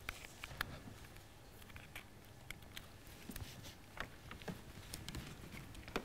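Faint, irregular clicks and light knocks of a laptop cable being handled and plugged in.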